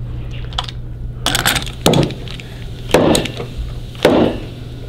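A fork seal driver striking the bottom of a Harley-Davidson 39 mm fork leg, seating the dust shield: a series of sharp metallic knocks about a second apart.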